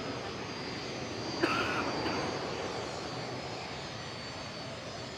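BAE Hawk jet trainers taxiing, their Rolls-Royce Turbomeca Adour turbofan engines running at low power as a steady rush with a faint high whine. About a second and a half in, a sharp click and a short high-pitched tone stand out briefly.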